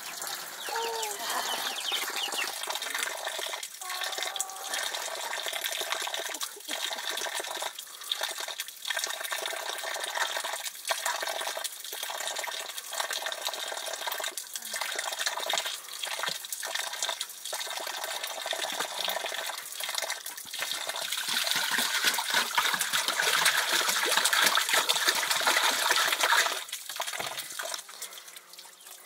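Water running and splashing, broken by frequent short breaks; louder for several seconds near the end, then it drops.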